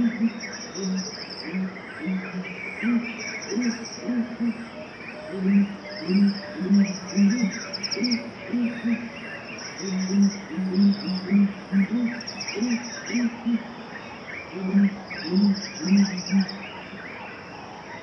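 Nature ambience of insects and birds: crickets give short high trills every second or two over many short bird calls. A low-pitched call repeats in quick runs of pulses throughout.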